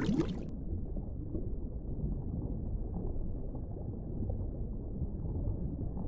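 Steady low, muffled rumbling noise, with no clear pitch or rhythm and nothing high in it.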